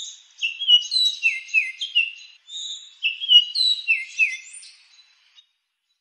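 Sparrow chirping: a quick run of high chirps, many of them sliding downward, that stops about five seconds in.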